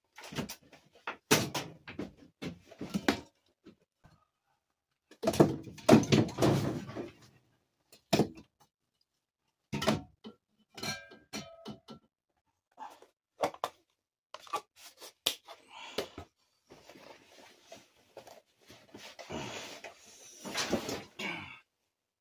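Irregular knocks, thuds and rustling as things are handled and shifted in a small cluttered room. The sound comes in short bunches with silent gaps, and the fullest bunches come about five to seven seconds in and again near the end.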